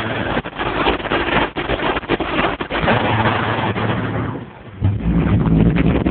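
Loud, heavily distorted bass from a car's trunk-mounted subwoofer system overloading the phone microphone, dropping briefly about four and a half seconds in, then coming back as a deeper rumble.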